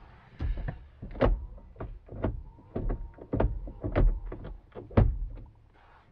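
Hands drumming and slapping on a van's steering wheel: a dozen or so irregular sharp taps and knocks with dull thumps, the loudest near the end.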